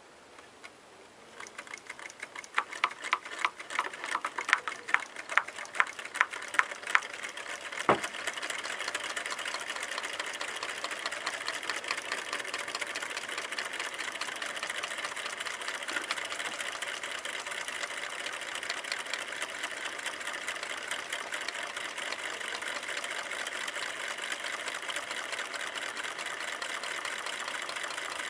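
Drink-can Stirling engines running on hot water, their wire cranks and flywheels clicking. There are distinct clicks about two or three times a second at first, then from about eight seconds a fast, steady rattling clatter.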